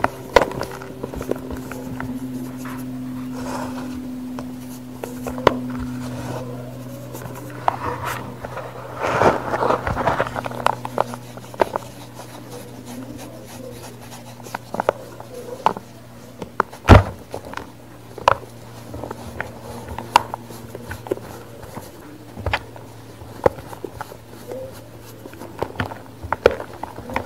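Blocks of baking soda crumbled and squeezed between gloved hands: a run of soft crunches and crackles, busiest about nine to ten seconds in, with one sharp snap about seventeen seconds in. A steady low hum runs underneath.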